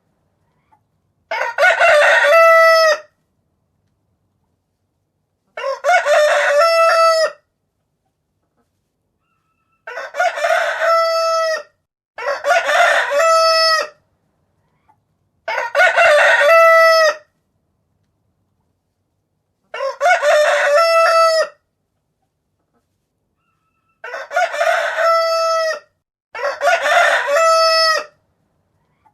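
Rooster crowing cock-a-doodle-doo, eight crows in all, each under two seconds long, separated by gaps of dead silence.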